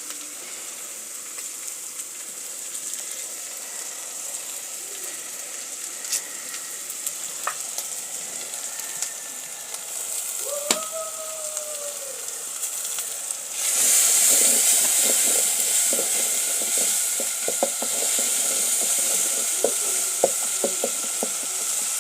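Tomatoes, carrots and onions frying in a pot, sizzling steadily. About two-thirds of the way through the sizzle gets suddenly louder and is joined by the quick taps and scrapes of a spoon stirring.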